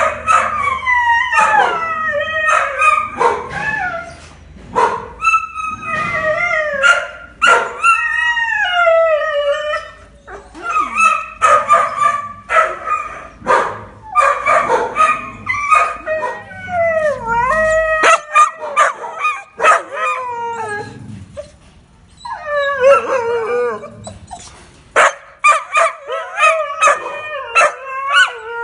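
Several kennelled shelter dogs howling and whining over one another, broken by frequent short barks and yips.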